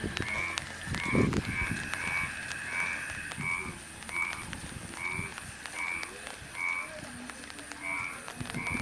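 A frog calling over and over in flooded rice paddies: short, evenly spaced croaks, a little more than one a second, spacing out slightly toward the end. A brief low rumble comes about a second in.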